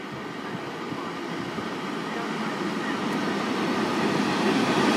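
Class 90 electric locomotive and its passenger coaches approaching along the platform. The wheels rumble on the rails and the sound grows steadily louder as the train nears.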